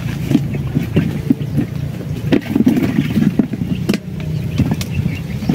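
A motor running steadily with a low, even hum, overlaid by scattered short clicks and rustles.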